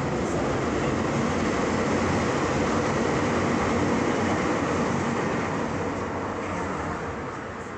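A steady, loud rushing rumble of a passing vehicle that fades near the end.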